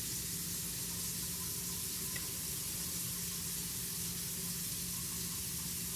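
Kitchen faucet running cold water steadily into a newly installed sink and down its drain, a test of the new drain plumbing for leaks.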